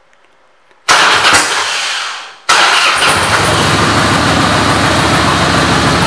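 2004 Harley-Davidson Fat Boy's fuel-injected Twin Cam 88B V-twin being started: about a second in, the starter cranks for roughly a second and a half, then the engine catches and runs at a steady, loud idle.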